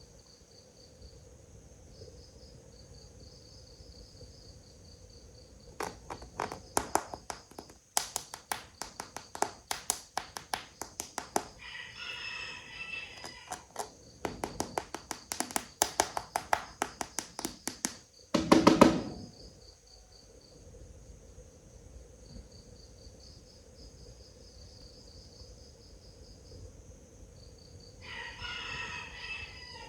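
Chickens clucking in rapid runs, with a rooster crowing briefly twice, over steady cricket chirping. A brief loud, low-pitched sound stands out a little after halfway.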